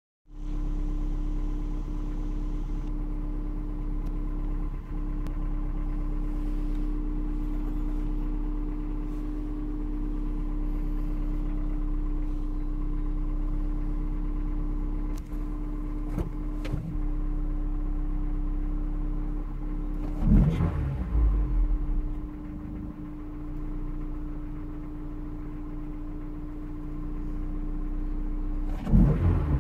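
Honda S2000's four-cylinder engine idling warm, about five minutes after a cold start, in which the owner suspects rod knock. The throttle is blipped twice, about two-thirds of the way in and again near the end. After the first blip the revs sag below idle, which the owner puts down to a faulty idle air control valve.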